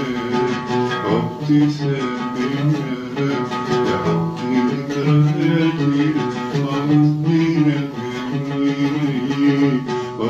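Oud playing an Arabic melody: plucked notes with held notes that bend and slide between pitches, a composer's rehearsal of a new song.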